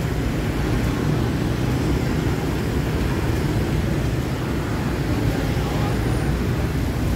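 Steady street traffic noise, mostly a low, even sound of vehicle engines and tyres.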